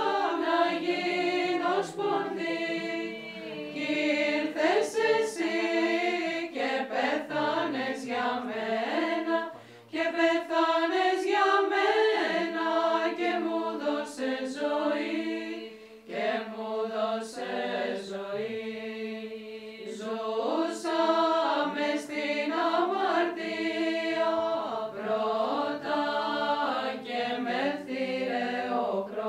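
A Byzantine hymn sung by a choir of Orthodox nuns: women's voices carrying a melody over a steady held low drone note. The singing dips briefly between phrases about ten and sixteen seconds in.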